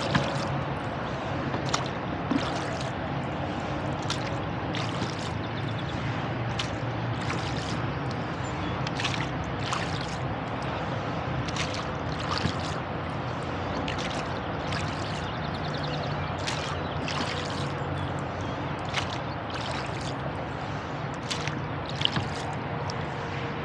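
Oars of a rowboat working in their oarlocks and dipping into the water, a pair of short knocks with each stroke about every two and a half seconds, with dripping and trickling water between, over a steady hum of distant highway traffic.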